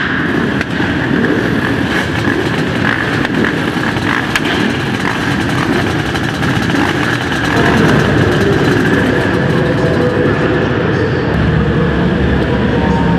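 Several sport quad engines running together, a dense, steady engine din that grows a little louder about eight seconds in.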